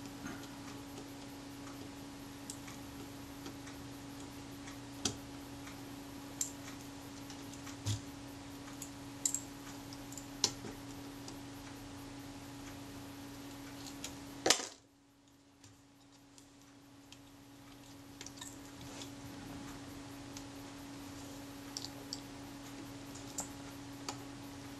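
Light metal clicks, a few seconds apart, of a small screwdriver and tweezers on tiny screws being set into the front plate of a Rolleiflex Automat TLR camera, over a steady low hum. All sound drops out for a moment just past halfway, then the hum fades back.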